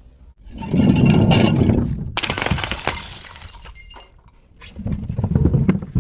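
A glass bottle breaking: a low rumble of knocks, then a sudden crash about two seconds in with pieces of glass clinking and scattering for a couple of seconds. Another low rumble of knocks builds near the end.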